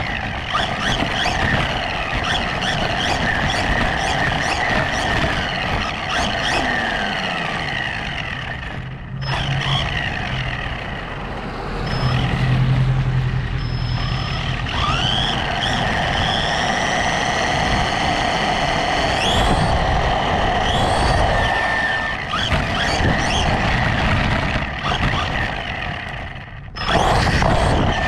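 Brushless electric motor and drivetrain of a 1/16 scale RC truck whining while it drives, heard from on board with tyre noise on asphalt. The whine rises and falls in pitch with the throttle. It dips briefly about nine seconds in and again just before the end, then picks back up.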